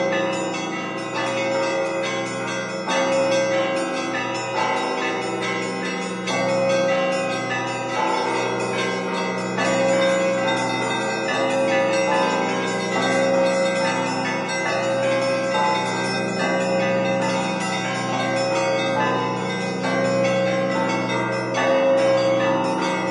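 Russian Orthodox church bells rung by a single bell-ringer (zvonar) in a continuous rhythmic peal. Small bells chime rapidly over a mid-pitched bell struck about every second and a half, with deeper bells ringing beneath.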